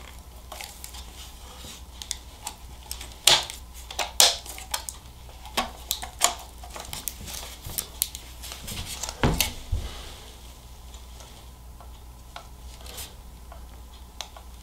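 Sony MEX-M70BT car stereo head unit being slid into a black plastic Metra 99-9600 mounting kit: scattered plastic-on-metal clicks, scrapes and knocks of handling, with a heavier knock about nine seconds in.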